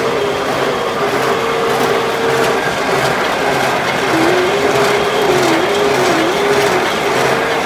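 Double roller press granulator running while peanut cake is pressed between its pocketed steel rollers: a steady grinding, crushing noise with a whine from the drive that dips in pitch a few times.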